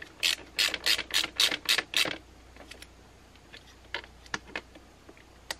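A ratchet wrench clicking as a battery cable nut is tightened down on a shunt bolt: a quick run of about six clicks a second for two seconds, then a few scattered clicks.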